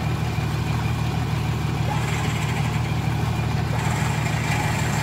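Toyota Land Cruiser hardtop's engine idling steadily, a low even engine sound with no revving.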